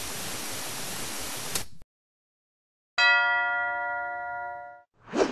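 Television static hiss that cuts off about two seconds in, then a second of silence, then a bell-like chime struck once and ringing for under two seconds, and near the end a short whoosh that swells up and dies away: intro sound effects for a logo.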